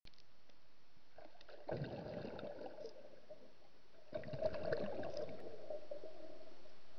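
Water sloshing and gurgling in two spells, one starting just under two seconds in and one about four seconds in, over a faint steady hiss.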